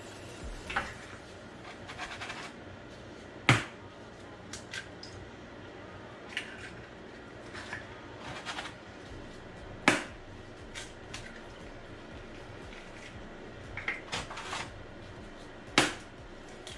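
Eggs being cracked one after another: three sharp knocks of shell on a hard edge, about six seconds apart, with lighter clicks and shell sounds between them.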